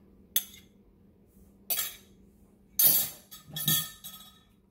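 Kitchen utensils and dishes clinking against a glass mixing bowl: four short clinks and clatters, the last two louder, with a little ringing.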